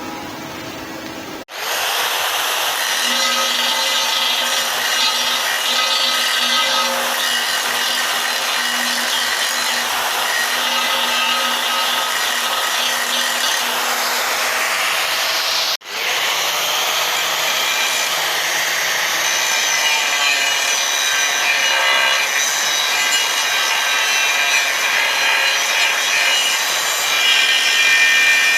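A handheld power tool grinding steadily on an aluminium wheel rim. The sound breaks off abruptly about a second in and again about halfway through, then carries on.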